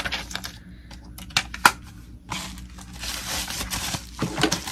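Plastic packaging being handled: a few sharp clicks and taps in the first two seconds, then a couple of seconds of continuous crinkling and rustling.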